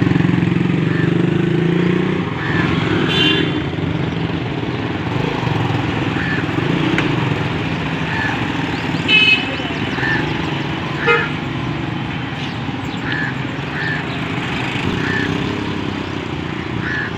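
Busy street traffic with people talking, and a vehicle horn tooting twice, about three and nine seconds in.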